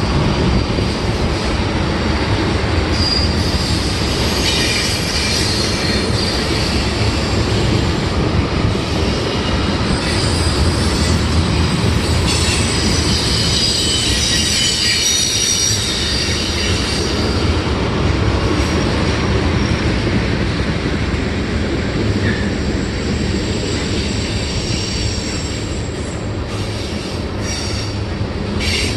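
Freight train cars rolling past on a curve: steady wheel rumble with the wheel flanges squealing high against the rail, the squeal loudest in the middle stretch.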